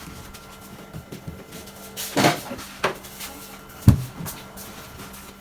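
Scattered knocks and clatters of things being handled and set down, the loudest a sharp thump about four seconds in, over a faint steady hum.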